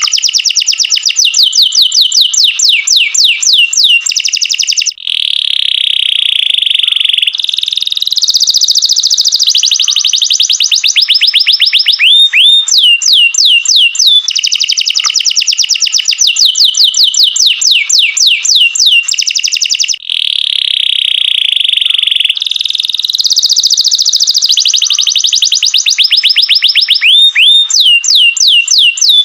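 Domestic canary singing a long, loud, continuous song: fast trills of repeated falling notes alternating with buzzy held phrases, the same sequence of phrases coming round again about every fifteen seconds.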